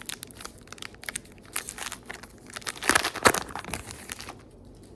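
A trading-card pack wrapper being torn open and crinkled, a dense crackle with a louder burst of tearing about three seconds in that dies away near the end.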